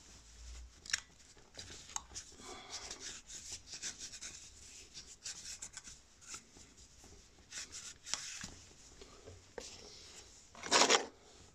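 Cloth rubbing and wiping over a motorcycle brake caliper: an irregular scratchy rustle of short strokes, with one louder brief rustle near the end.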